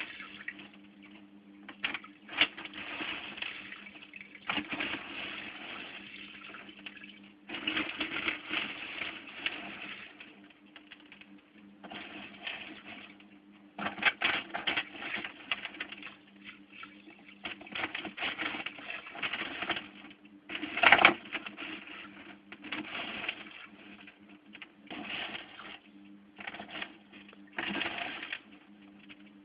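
Water in a home aquarium splashing and sloshing in irregular bursts as the tank is cleaned by hand, with one louder splash about two-thirds of the way in. A steady low hum runs underneath.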